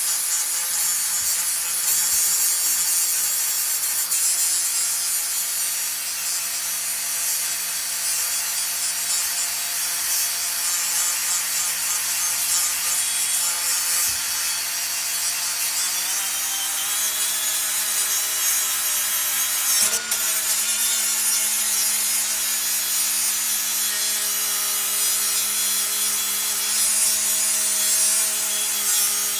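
Power grinder running continuously, grinding metal off a brake caliper bracket to make it fit. Its motor tone shifts slightly about sixteen seconds in.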